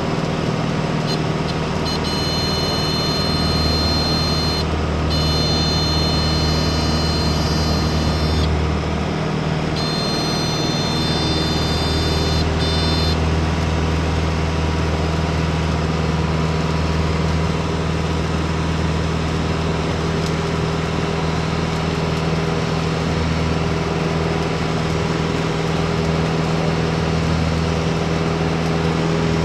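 Piper Tomahawk's four-cylinder Lycoming engine droning steadily, heard in the cabin. Over it, for roughly the first dozen seconds, the stall warning horn sounds a high, steady buzzing tone that cuts out briefly a couple of times, showing the wing is at or near the stall.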